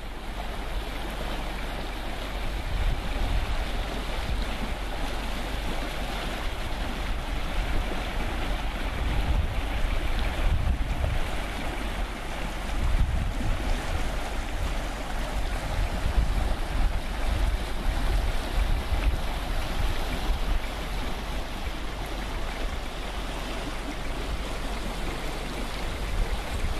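River water rushing steadily over gravel shallows, with wind buffeting the microphone in low gusts.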